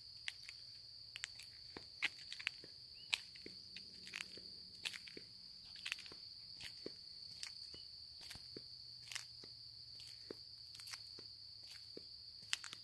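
Footsteps crunching along a trail, irregular and a step or two a second, over a steady high-pitched insect chorus.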